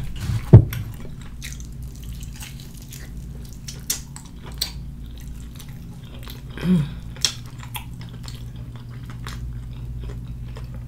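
Close-up eating sounds: a person biting and chewing fried chicken, with many small wet clicks and smacks. There is a loud thump about half a second in and a short hummed vocal sound a little past the middle.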